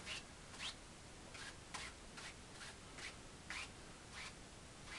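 Paint brush stroking across a wet oil-painted canvas: short brushing strokes, roughly two a second, slightly uneven.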